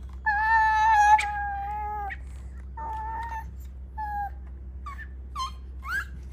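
A toddler blowing through the whistle mouthpiece of a plastic toy car: a long, steady whistle note, then a shorter one and a brief one, followed by a few short rising chirps near the end.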